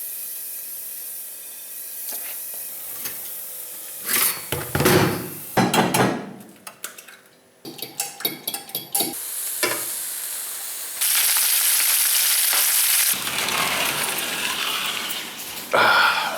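Food sizzling in a frying pan, with a utensil clattering and scraping against the pan in between; the sizzle jumps louder suddenly a little past the middle.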